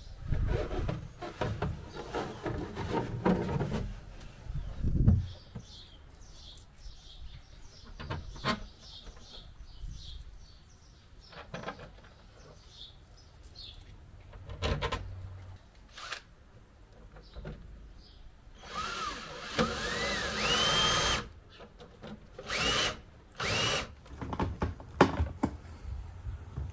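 A plastic trunk-extension tray knocking and rattling as it is set into place. Then a cordless drill-driver runs in several short bursts, the first one longest, its motor whine rising in pitch each time it spins up.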